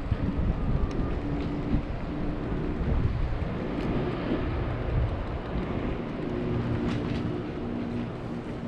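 Electric scooter riding over concrete with a steady low motor whine, tyre rumble and wind on the microphone, and a few light knocks.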